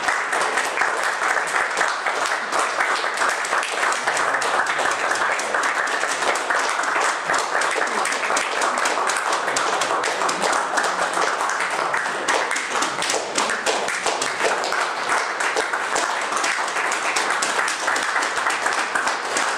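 Audience applauding, many hands clapping together in a dense, steady stream.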